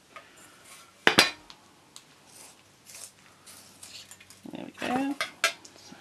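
Prismacolor coloured pencils clacking against each other as they are handled and put back among the others, with one sharp loud clack about a second in and a few more clicks near the end.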